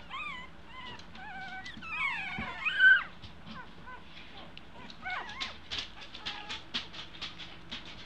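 Two-week-old American Eskimo puppies whining: several high, wavering squeals in the first three seconds, the loudest just before the three-second mark. A run of short, quick ticks follows from about five seconds in.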